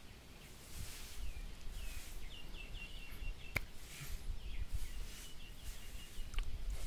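A bird calling, with two runs of short, high chirped notes, one starting about a second in and another about four and a half seconds in, over a low rumble on the microphone. A single sharp click comes about halfway through.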